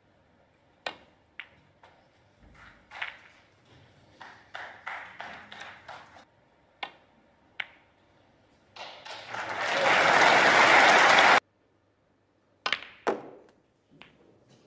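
Snooker balls clicking sharply, cue tip on cue ball and ball on ball, a handful of separate knocks spread through. About nine seconds in, audience applause swells for two or three seconds, the loudest sound here, and cuts off suddenly, followed by a few more ball clicks.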